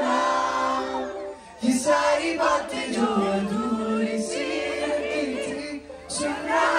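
A male singer singing live through a concert PA system, with many voices from the audience joining in. The phrases are held and break briefly about a second and a half in and again near the end.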